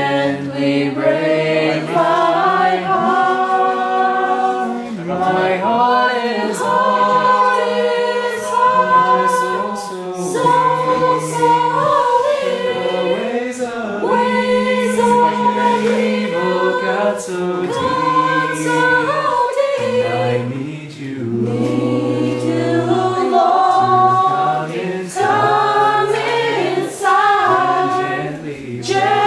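Choir singing a Christian worship song, several voices in harmony over long held low notes.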